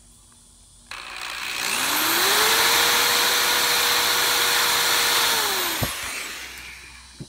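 Power drill boring a hole with a 1-inch spade bit through a scooter's plastic leg-shield panel. The motor winds up about a second in, runs at steady speed with loud cutting noise for about three seconds, then winds down and stops.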